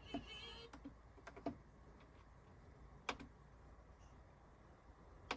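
Faint scattered clicks and taps, about six in all, with a short squeak near the start.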